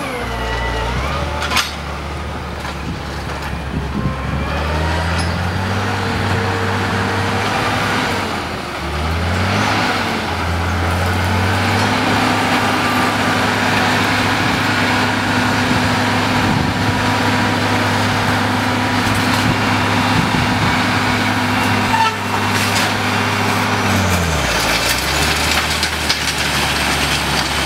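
Caterpillar Challenger MT865C tracked tractor's diesel engine running steadily under load while pulling a Väderstad cultivator through dry ground. Its pitch wavers about a third of the way in and drops about four-fifths of the way through, with a few sharp knocks along the way.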